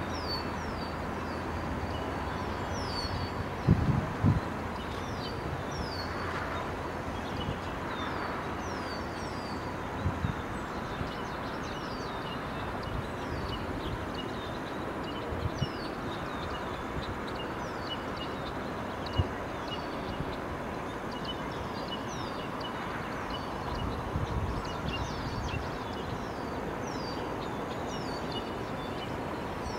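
Birds chirping over steady outdoor background noise, each call a short descending note repeated every second or two. A few brief low thumps stand out, the loudest about four seconds in.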